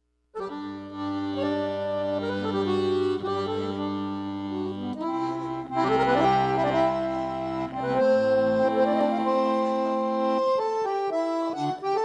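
Accordion playing a song's instrumental introduction: held chords over sustained bass notes that change every few seconds, breaking into quicker, shorter notes near the end.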